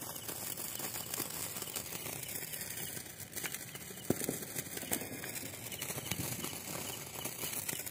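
Hand-held sparklers fizzing and crackling, a steady run of tiny sputtering clicks, with one sharper crack about four seconds in.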